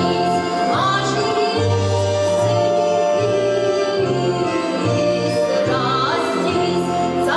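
Orchestra playing, with a woman singing long gliding notes above a bass line that moves in steps about twice a second.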